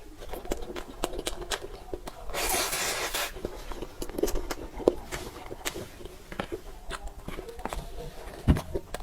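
Close-miked eating sounds of soft cake being chewed: many small wet mouth clicks and smacks, a rustle of about a second around two and a half seconds in, and a soft thump near the end.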